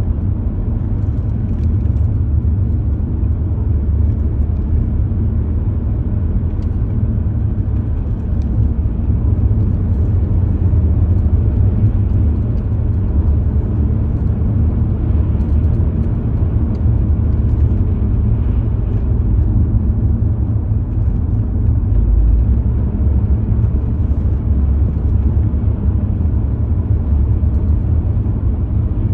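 Steady low rumble of a car driving along the road, heard from inside the cabin.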